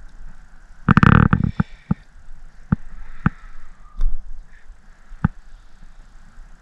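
Handling noise from unhooking a small sunfish held in the hand: scattered sharp clicks and knocks, with a louder, quick flurry of knocks about a second in.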